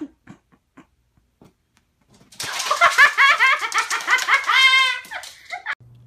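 A dog whining: a fast run of high-pitched, wavering cries lasting about three seconds, starting about two seconds in. A few faint clicks come before it.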